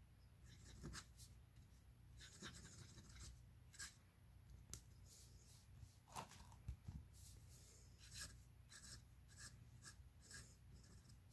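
Nib of an early-1920s Wahl all-metal fountain pen scratching faintly across paper as it writes, in short, irregular strokes.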